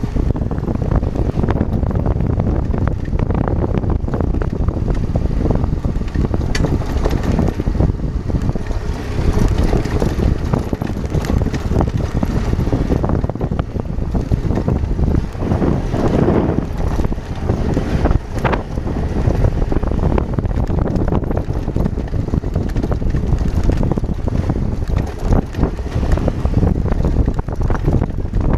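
Adventure motorcycle riding a rough dirt and gravel road: wind buffeting the microphone over the steady running of the engine and tyres, with frequent small knocks and rattles from the bumps.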